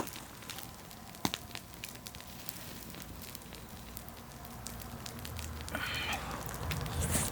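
Firewood fire crackling, with scattered sharp pops. A short rustling scrape about six seconds in.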